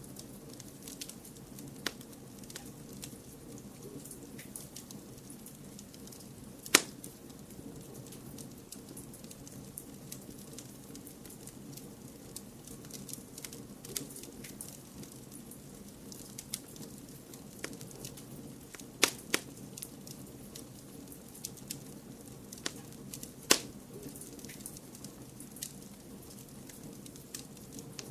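Crackling fire in a fireplace: a steady low rushing bed with scattered small crackles and a few loud, sharp pops, the loudest about seven seconds in and two close together around nineteen seconds.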